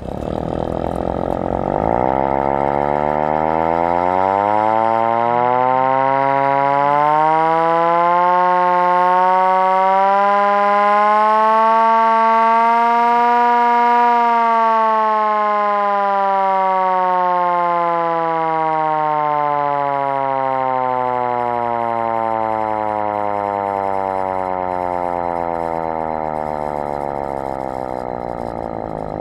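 Siren of a 1931 Ford fire truck sounding one long cycle. It rises steadily in pitch for about fourteen seconds, then falls slowly, growing a little fainter near the end.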